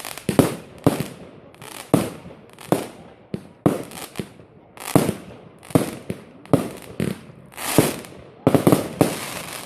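Aerial fireworks bursting: a dozen or so sharp bangs, about one or two a second, each trailing off in a brief crackle, with a quicker run of bangs near the end.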